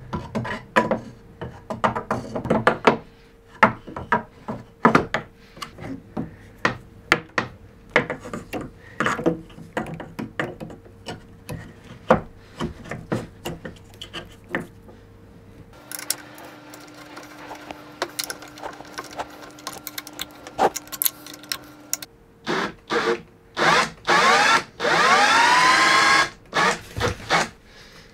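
Metal clicks, knocks and rubbing as a ballscrew, its bearing blocks and bolts are handled and fitted into a DIY CNC router's drive. Near the end a small motor whirs loudly for about two seconds, its pitch sweeping.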